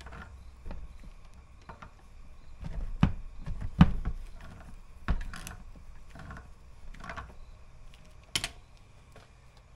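Irregular metal clicks and knocks of channel-lock pliers gripping and twisting a seized brake caliper piston to work it loose, with a few louder knocks scattered through.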